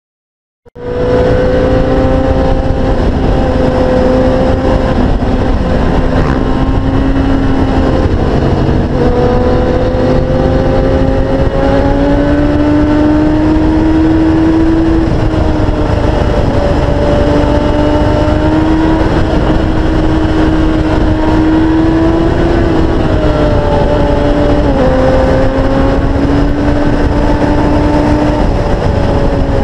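Sportbike engine running hard at high speed, a steady high note that climbs slowly and dips briefly twice near the end, over heavy wind rush on the microphone. It starts abruptly about half a second in.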